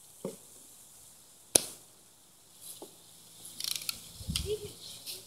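Red Ryder lever-action BB gun firing: sharp cracks, the loudest about a second and a half in, with two softer ones before and after. A cluster of clicks and a low rumble follows near four seconds in.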